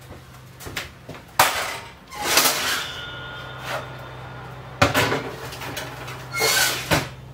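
Metal baking tray clattering and scraping as it goes into the oven, with a few sharp knocks of the tray and oven door, over a low steady hum.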